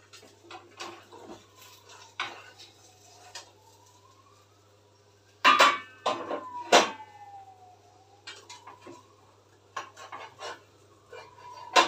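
Metal tongs and a pan lid clattering against a frying pan, in scattered clanks with the loudest cluster about five and a half to seven seconds in. A faint tone glides slowly up and down throughout.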